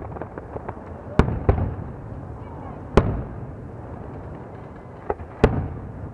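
Aerial firework shells bursting: five sharp booms, the loudest about one, three and five and a half seconds in, each trailing off in an echo, with smaller pops and crackles between them.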